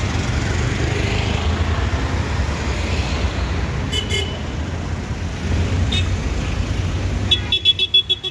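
Street traffic noise: a steady low rumble with a hiss over it. Short high-pitched beeps come twice about four seconds in, and a quick run of them near the end.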